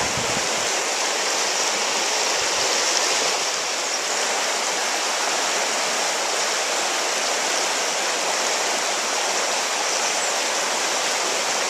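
River rapids rushing steadily over rocks, a constant even roar of white water.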